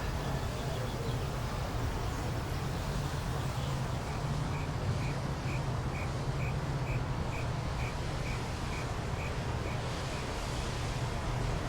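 Outdoor ambience with a steady low hum under an even background hiss. A little after the start, a run of short high chirps repeats about twice a second for several seconds, then stops.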